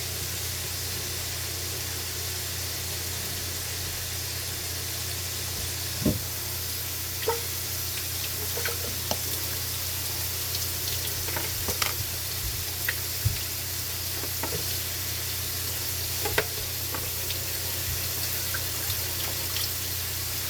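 Steady sizzle of food frying in a pan, with scattered light clicks and knocks of kitchen utensils from about six seconds in.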